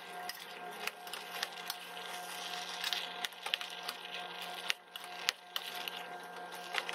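Metal spoon stirring diced zucchini and tomato in a pot: irregular clicks and scrapes of the spoon against the pot and the vegetable pieces, with a faint steady hum underneath.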